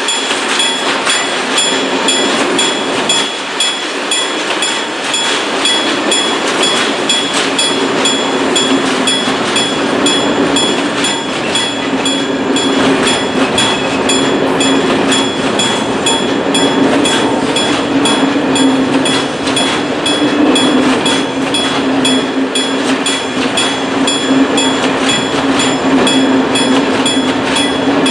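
Loaded timber wagons of a freight train rolling over a level crossing, a steady rumble with frequent wheel clicks over the rail joints and crossing. A steady high ringing runs over it from the crossing's warning bell.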